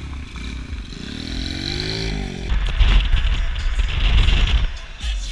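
A quad bike's small engine revving up and then dropping back. About two and a half seconds in it cuts to steady wind and road noise from a car driving along.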